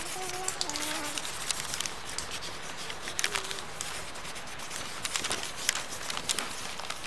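Hand and drawing tool scratching and rubbing on paper: an uneven run of short scrapes over a steady hiss.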